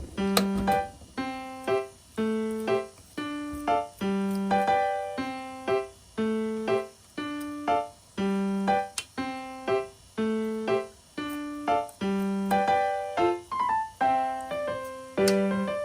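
Background music: an electric piano playing a simple, evenly paced melody of about two notes a second.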